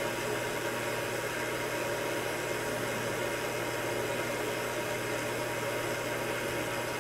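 A steady low machine hum with a faint high tone over it, unchanging throughout; it is room or equipment noise.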